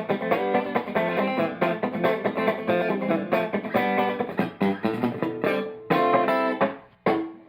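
Electric guitar played through a small effects pedal board into a Fender Blues Junior valve amp: a busy run of quickly picked single notes and chords. Near the end the playing stops briefly, then one more note sounds.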